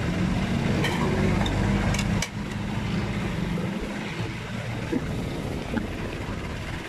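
A vehicle engine running close by, a steady low hum that drops away suddenly about two seconds in, leaving quieter street traffic noise.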